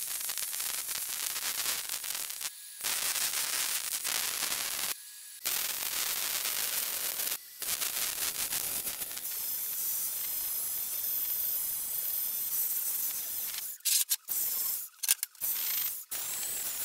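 Welding arc crackling and hissing steadily as caster plates are welded to a steel tube frame. It stops and restarts a few times, with several short bursts near the end.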